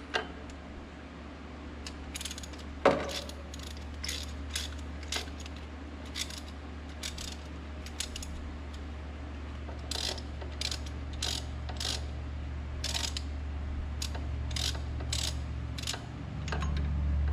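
Hand ratchet clicking in short strokes as it turns a socket on exhaust manifold bolts, the clicks coming faster about two-thirds of the way through. A steady low hum runs underneath and grows louder near the end.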